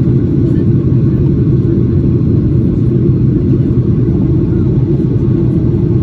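Cabin noise inside a Boeing 737-800 airliner in flight, heard from a window seat behind the wing: a steady, loud, deep rumble of airflow and the CFM56-7B turbofan engines, with only a faint hiss above it.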